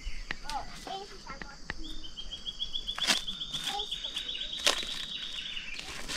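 Forest ambience: a steady high insect drone with a rapid, evenly pulsed high trill from about two seconds in, lasting nearly four seconds, and a few sharp clicks and knocks.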